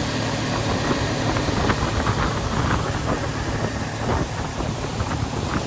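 Suzuki 40 hp outboard motor running at speed on a small boat underway, mixed with wind rushing over the microphone and water noise, with irregular short knocks from the hull on the water.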